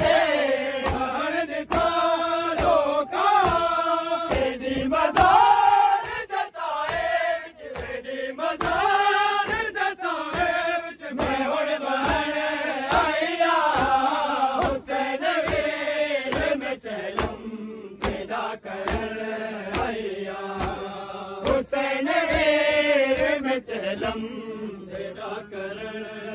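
A Punjabi/Saraiki noha chanted as a melodic lament over a steady rhythm of hand slaps on bare chests from a large crowd of mourners doing matam, the beats evenly spaced throughout.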